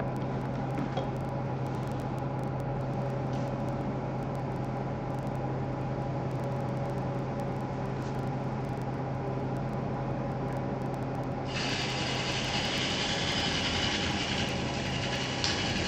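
Wood lathe running with a steady hum; about eleven seconds in, a turning tool bites into the spinning wood and a loud hissing cut starts and carries on.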